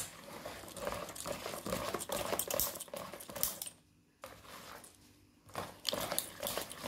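Wire hand whisk beating thick martabak batter in a bowl: fast, rattly clicking and scraping of the wires against the bowl and through the batter. It breaks off briefly about four seconds in, then picks up again.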